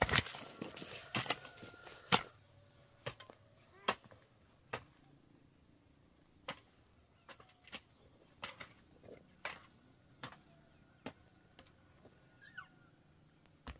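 Sharp knocks of hand-tool strikes on wood, as in chopping or hammering while building a frame: a quick run of blows in the first couple of seconds, then single, irregular strikes every second or so.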